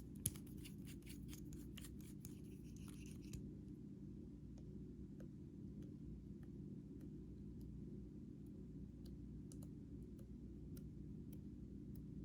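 Close-up crackling and clicking from slime-making materials being handled, dense for about the first three seconds, then thinning to scattered single ticks, over a steady low hum.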